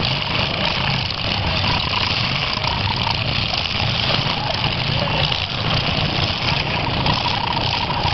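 Engines of several demolition derby cars running at low speed as they manoeuvre, a steady din with a low rumble and no clear crash.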